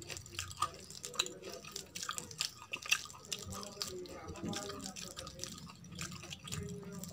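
A hand squishing and mixing rice with kadhi in a steel plate: wet squelching with many small sticky clicks.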